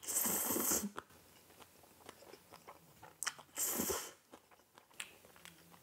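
Spicy black-bean (jjajang) instant ramen noodles slurped from a bowl, two loud slurps about three and a half seconds apart, with chewing and small wet mouth clicks between them.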